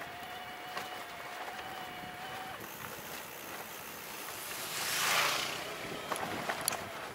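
A vehicle passing on the road, its hiss swelling to a peak about five seconds in and then fading, over a faint steady whine that stops after the first couple of seconds. A few light clicks come near the end.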